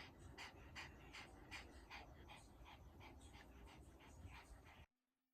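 A dog panting faintly and rhythmically, about three breaths a second, cutting off suddenly near the end.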